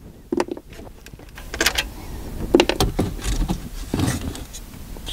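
Irregular clicks, clinks and knocks of hand tools and loose 10 mm bolts being handled as a car stereo's mounting bolts are taken out.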